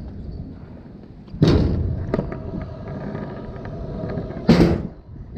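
Kick scooter's wheels rolling over pavement with a steady rumble, broken by two loud thuds, one about a second and a half in and another about four and a half seconds in, with a few lighter clicks between.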